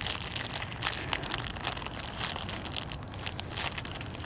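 A fire crackling with many sharp, irregular pops.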